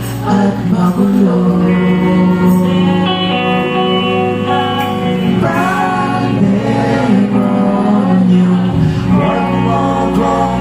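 Live rock band playing at full volume, with vocals held over a steady band sound.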